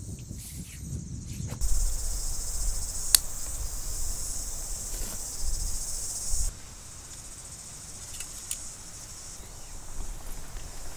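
Steady high-pitched insect chorus, much louder with a low rumble beneath it from about one and a half seconds in until it drops abruptly about halfway through, then going on faintly. A single sharp click sounds about three seconds in.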